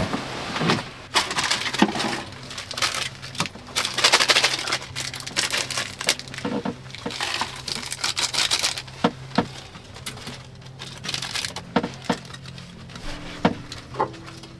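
Rustling and crinkling in a small room, with many scattered light clicks and knocks over a faint steady low hum.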